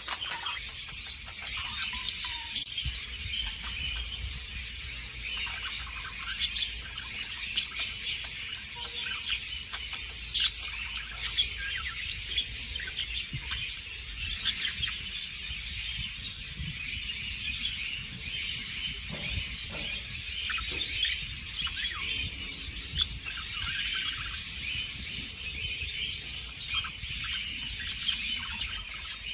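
A flock of budgerigars chattering: dense, continuous high chirps and warbles from many birds at once, over a faint low hum.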